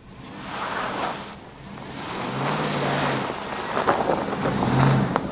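Full-size SUV towing an enclosed trailer drives past on snow-covered ice, its engine note coming up twice as it is pushed into a drift, over a steady rush of tyres churning snow and wind on the microphone.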